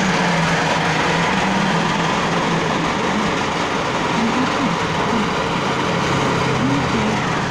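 Machine-shop vibrating table running: a loud, steady mechanical rattle over a constant motor hum.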